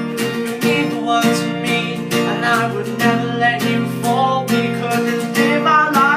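Acoustic guitar strummed in a steady rhythm, about two strokes a second. From about two seconds in, a voice sings a wordless melodic line over it.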